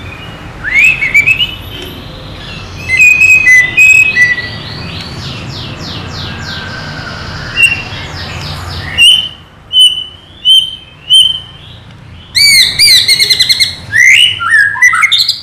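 White-rumped shama (murai batu) singing loud, varied whistled phrases. A fast run of repeated notes comes in the middle, then four short separate whistles and a dense burst of rapid phrases near the end. This is the fired-up ('emosi', 'gacor') song played to spur other shamas into singing.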